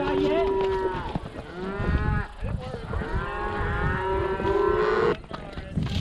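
Cattle in a herd mooing, several long calls overlapping one another, cut off abruptly about five seconds in.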